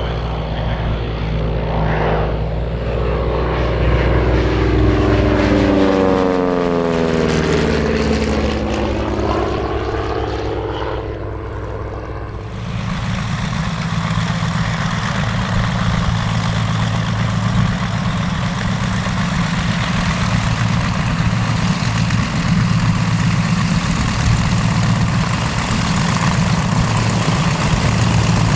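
A TBM Avenger's radial engine passes by, its pitch falling steadily as it goes past. About halfway through, this gives way abruptly to the steady drone of a B-25 Mitchell's twin radial engines.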